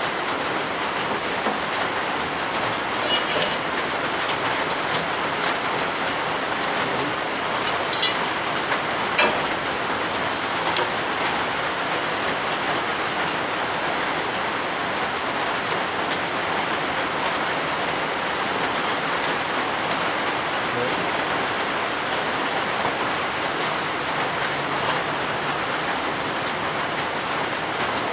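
Steady, even shop background hiss with a few light clicks of hand tools on the grinder's steel tool rest, about three and about eight to nine seconds in.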